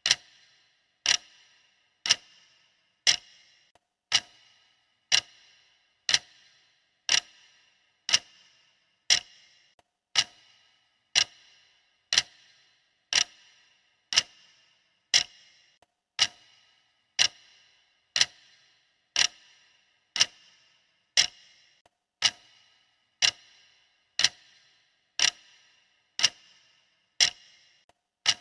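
Clock-style ticking of a countdown timer, one sharp tick about every second, each with a brief ringing tail, in a steady unbroken rhythm.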